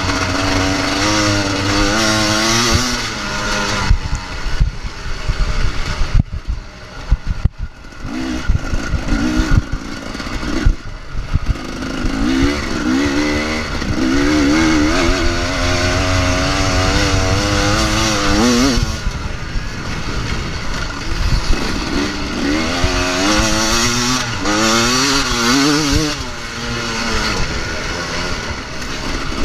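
Husqvarna dirt bike's engine heard from on board, revving up and falling back again and again as it rides the track. About six seconds in the throttle drops off for a couple of seconds, with a few sharp knocks, before it pulls hard again.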